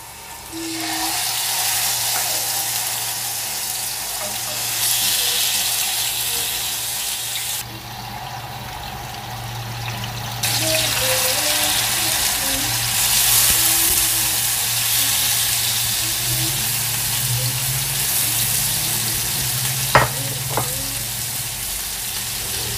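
Marinated king fish pieces shallow-frying in hot coconut oil: a steady sizzle that starts about half a second in as the fish goes into the pan. One sharp tap near the end.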